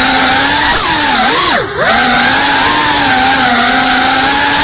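FPV quadcopter's brushless motors and propellers whining steadily, heard close from the camera mounted on the drone. About a second in the pitch falls and wavers, then dips sharply with a brief drop-out as the throttle is chopped, before coming straight back up to a steady whine.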